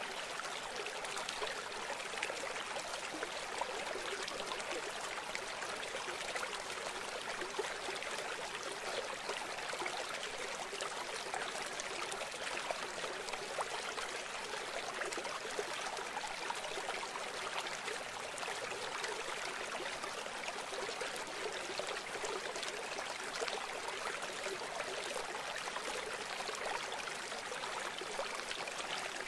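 Steady rushing of running water, like a stream, thin with almost no low end and unchanging throughout.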